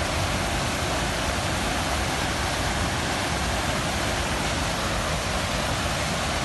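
Whitewater rapids of a mountain river rushing over rocks, a steady, even rush of water.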